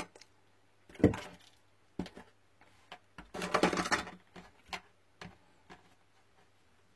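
Small objects being handled on a workbench: a sharp knock, a click, a brief rustle, then a few light ticks.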